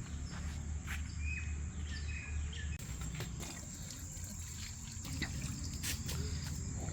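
Outdoor nature ambience: a steady high-pitched insect drone with scattered clicks of footsteps on a path, and a few short chirps about one to two and a half seconds in.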